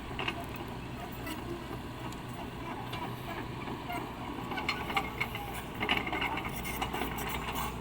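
Caterpillar 307E2 mini excavator's diesel engine running steadily, with scattered short clicks and knocks, a few louder ones about five to six seconds in.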